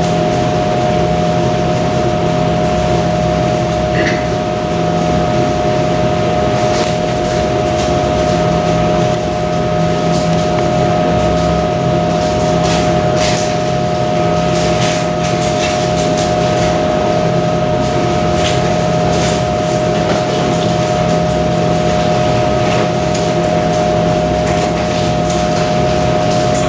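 Steady mechanical hum with a constant whine held at a few fixed pitches, like fans or motors running, with occasional light clicks and taps.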